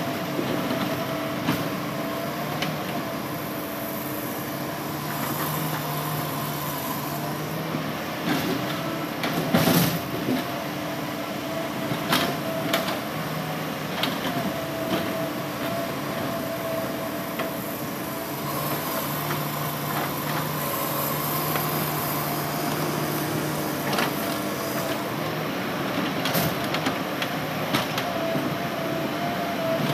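Hitachi Zaxis 200-5G excavator running under load, its diesel engine steady under a wavering hydraulic whine. A few sharp knocks sound as it works rocky ground, the loudest about ten seconds in.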